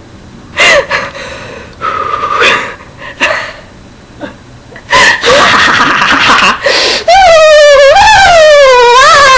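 A young woman laughing hard in short, breathy bursts with gasps, breaking about seven seconds in into a long, high-pitched, wavering squeal.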